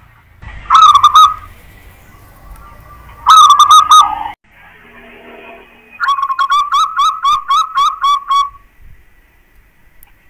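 Zebra dove (perkutut) cooing: two short phrases, then a longer run of about nine quick, evenly spaced coos. This is the bird's song played as a lure to draw other perkutut to answer.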